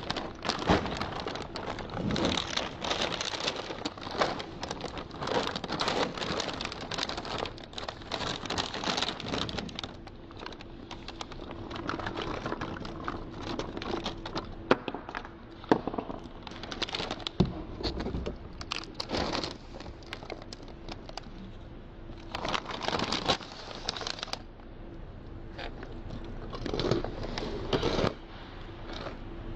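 Dry cereal pieces pouring and rattling between a plastic zip-top bag and a plastic food container, with the bag crinkling and small clicks as pieces hit the plastic. The pouring comes in uneven bursts, loudest around 17, 23 and 27 seconds in.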